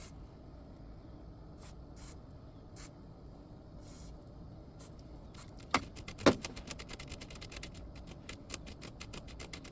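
Short hisses of DeoxIT D5 contact-cleaner aerosol sprayed into an amplifier's switch contacts. The spray comes a few times apart, then there are two sharp clicks a little past halfway, then a quick run of short spurts.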